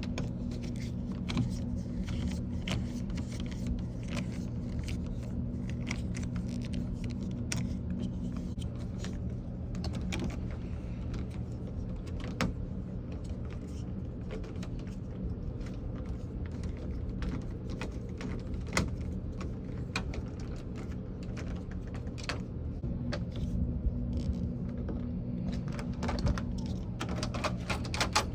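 Small metallic clicks and taps, irregular and scattered, of door lock hardware being handled and fitted, over a steady low hum.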